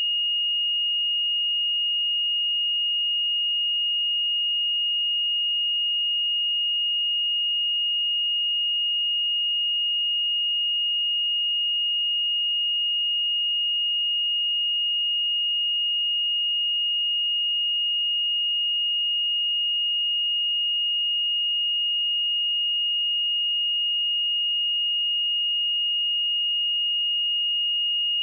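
A pure 2858 Hz sine-wave test tone: one steady, unchanging high-pitched tone with no other sound.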